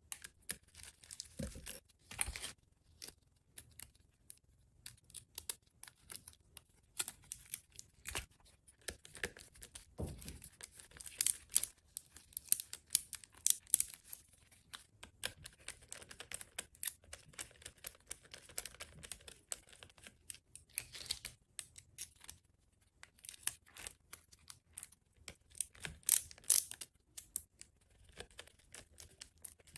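Hands working on an electric AC compressor's wiring harness: irregular small clicks, scrapes and rustles of wires and plastic connectors being handled and fitted.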